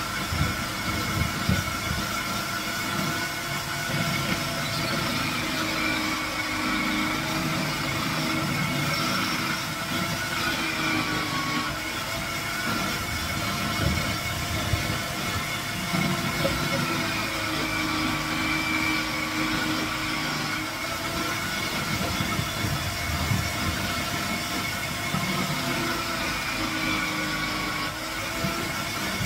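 Electric food processor motor running steadily while grating squash fed down its chute. It makes a continuous whine that wavers slightly in pitch now and then.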